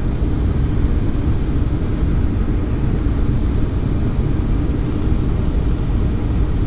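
Boeing 757-200 cabin noise heard from a seat over the wing during the descent to land: a steady low rumble of the turbofan engines and airflow, unchanging throughout.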